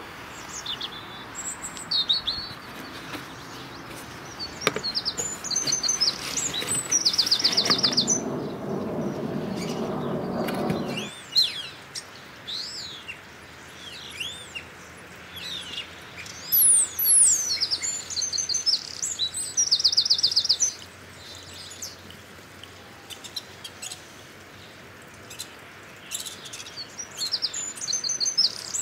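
Garden songbirds chirping and singing, with short rising and falling calls and a rapid trill that comes back several times. A louder rushing noise joins in about seven seconds in and cuts off abruptly about four seconds later.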